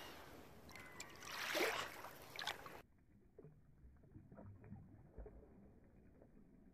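An Australian shepherd splashing as it wades in shallow water, with a loud rush about one and a half seconds in. About three seconds in the sound suddenly turns muffled and slowed as the slow-motion part starts: faint low gurgles and clicks of the dog blowing bubbles with its nose in the water.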